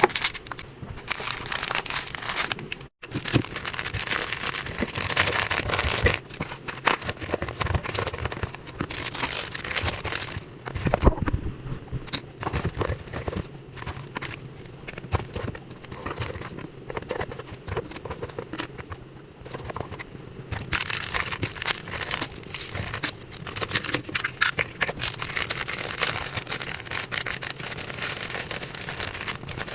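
Packaging material being handled as a parcel is packed: continuous crinkling, rustling and scraping with many small crackles, broken by a brief silent gap about three seconds in.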